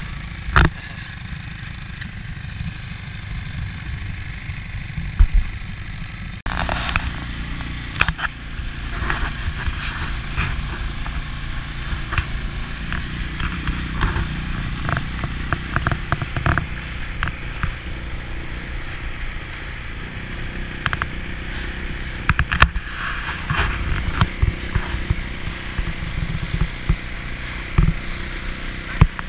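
Suzuki DF6 single-cylinder four-stroke outboard motor running under way on a small inflatable boat, with scattered knocks through the run. It gets louder and fuller about six seconds in.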